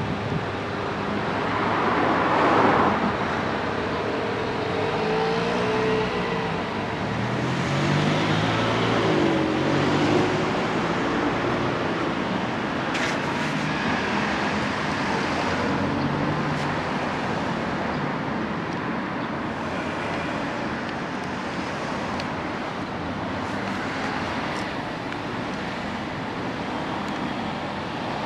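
Honda Monkey Z50's small single-cylinder four-stroke engine running on an aftermarket muffler, louder about two seconds in and again around eight to ten seconds in.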